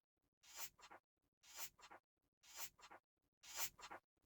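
Book pages turning, one about every second: four quiet papery swishes, each swelling and ending in a short flick as the page lands.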